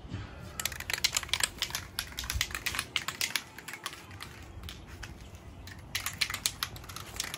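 Aerosol spray-paint can being shaken, its mixing ball rattling in fast, sharp clicks. There are two spells, one starting about half a second in and one near the end.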